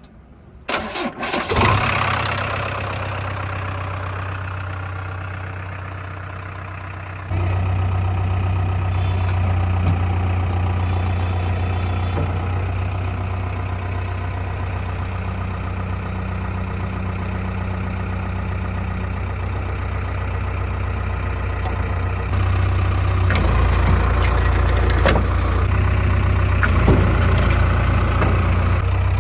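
A diesel engine cranks and starts about a second and a half in, then runs at a steady idle. Its note gets louder about seven seconds in and again near the end, with a few knocks and clanks late on.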